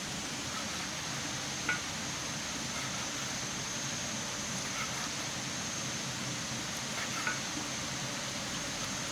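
Steady hiss of food cooking over an open fire, with a few small pops or crackles, one about two seconds in and another near the end.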